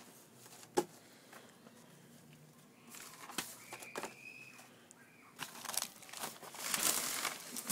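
Stiff sheets being handled and shifted on a stack, rustling and crinkling. The rustle grows loudest in the last couple of seconds, after a single sharp tick about a second in.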